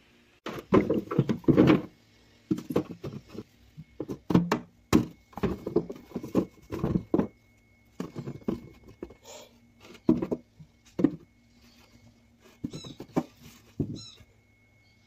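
Irregular knocks and thuds of a glass jar and vegetables being handled and set into a refrigerator's plastic drawer, over a low steady hum. A few short high squeaks come near the end.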